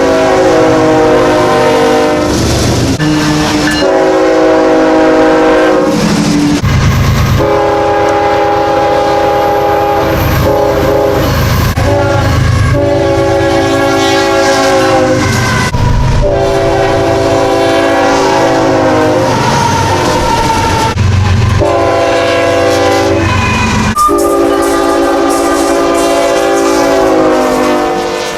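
Nathan Airchime K5HL five-chime locomotive horn sounding a series of long and short blasts, like a grade-crossing signal, separated by brief breaks. Near the end the chord slides down in pitch as the locomotive passes.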